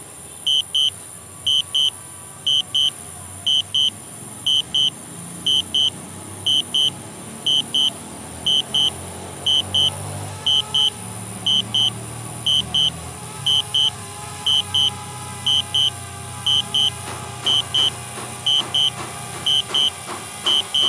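High-pitched paired warning beeps from the DJI flight controls, one double beep about every second, sounding the alert that the DJI Spark is auto-landing under return-to-home. A low steady hum runs underneath.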